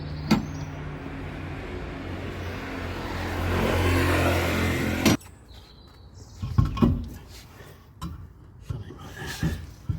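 A small electric motor runs steadily, growing louder, then stops abruptly about five seconds in; several knocks and clunks follow.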